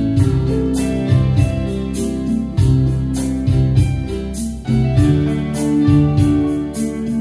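Casio Privia digital piano playing with an electric guitar, in an instrumental passage over a steady beat.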